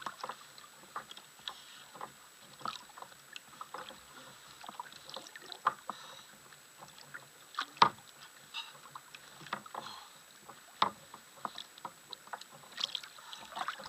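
Irregular light clicks and knocks of fishing tackle being handled aboard a kayak, with one sharper knock about eight seconds in.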